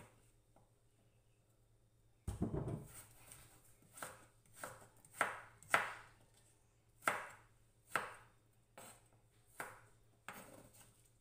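Kitchen knife chopping peeled taro (gabi) on a wooden cutting board: about a dozen strokes, one every half second to second, starting about two seconds in, the first with the heaviest thud.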